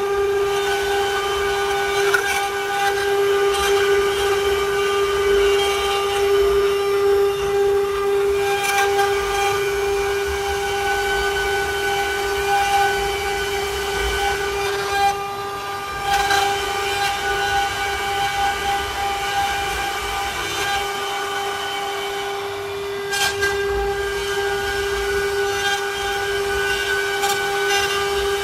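CNC wood-carving router's spindle running with a steady high whine, with a short dip in level about halfway through.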